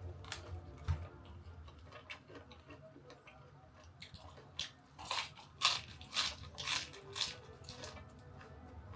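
Close-up chewing of crisp food, with a run of about seven loud crunches starting about halfway through, over a low steady hum.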